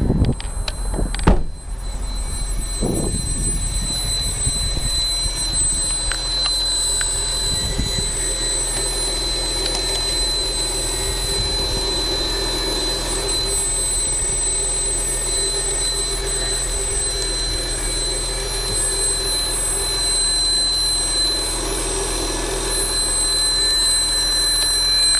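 A steady high-pitched ringing tone from an Acura TL, with a lower hum beneath it, running without a break after a few clicks and knocks in the first two seconds. Its cause is unknown to the owner.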